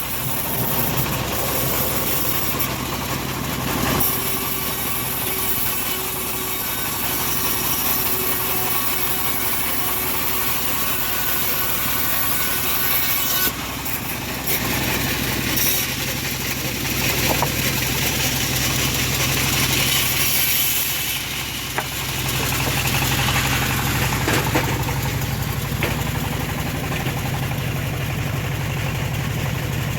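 Engine-driven homemade bandsaw mill running steadily while ripping teak, with a steady engine note under the noise of the blade.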